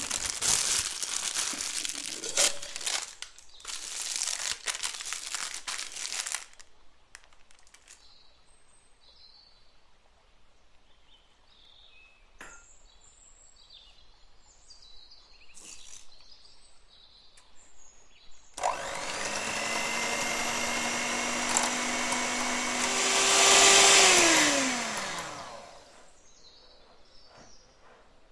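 A plastic piping bag crinkling and rustling as it is handled, for about six seconds. Later an electric hand mixer whips cream for about seven seconds; it speeds up briefly, then winds down to a stop with its pitch falling.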